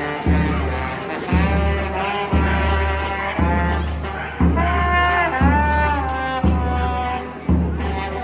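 Brass band music: horns play a melody over a heavy low beat that falls about once a second.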